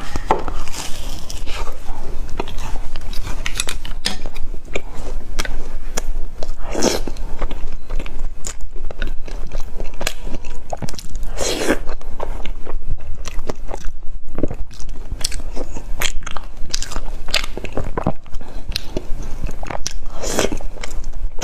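Close-miked biting and chewing of a crunchy snack, with repeated crisp crunches.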